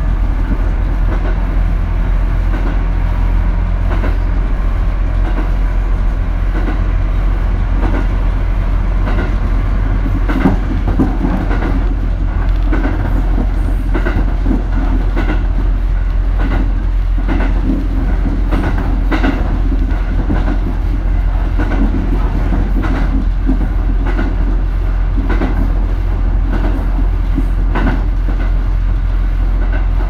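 Sea Side Liner diesel train running along the track, heard from the driver's cab: a steady low rumble, with the wheels clicking over rail joints again and again.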